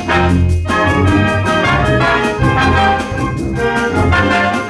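A full school wind band playing a medley: brass, saxophones, clarinets and flutes together in loud sustained chords over a strong bass line.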